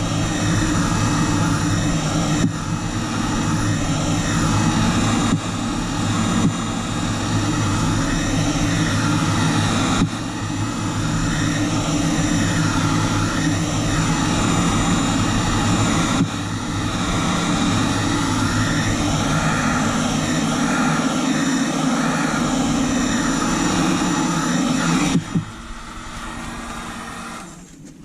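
Electric heat gun running on its max setting, a steady blowing rush with a hum, played over faded exterior plastic trim. It cuts off suddenly about 25 seconds in.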